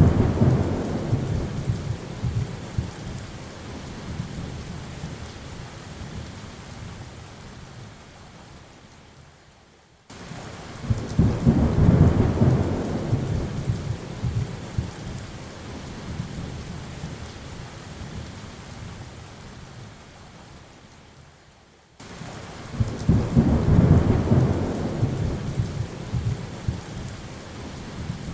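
Steady rain with rolling thunder: three low rumbles about twelve seconds apart, each swelling and then slowly fading over the rain. The sound cuts off abruptly just before the second and third rumbles, as a looped recording does.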